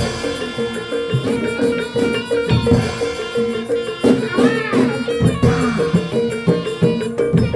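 Live traditional Javanese percussion music for a Barongan Blora performance: repeated drum strokes under a steady ringing metal tone, with other pitched percussion.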